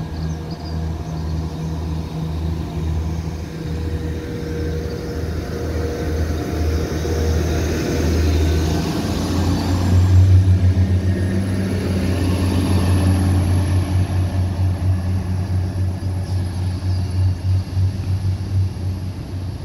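Transport for Wales Class 197 diesel multiple unit pulling out and passing close by, its diesel engines throbbing. It is loudest as it goes past about ten seconds in, when a high steady whine joins the throb, then it draws away.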